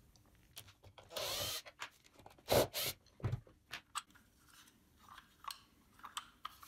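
Wooden parts of a hand-made wooden V8 engine model being handled and taken apart: wood rubbing and sliding for about half a second about a second in, then two sharp knocks of wood on wood and scattered small clicks.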